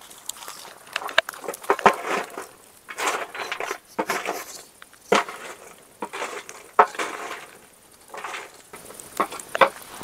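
Irregular handling clatter: sharp knocks and clinks, a few of them loud, with short scraping rustles between them, as of utensils and dishes being moved about.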